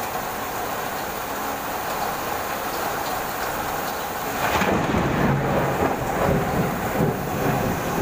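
Heavy rain falling steadily, with a roll of thunder rumbling in about halfway through and fading after about three seconds.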